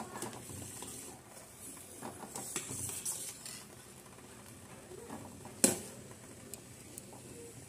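Steel ladle stirring and clinking in a stainless steel pot of boiling sugar syrup, over the faint steady bubbling of the syrup. A few light clinks come a couple of seconds in, and one sharp knock of ladle on pot about five and a half seconds in is the loudest sound.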